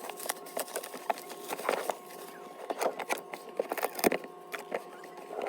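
Packaging of a slime kit being opened and handled: scattered irregular clicks and crinkles, a few sharper ones, over a faint steady hum.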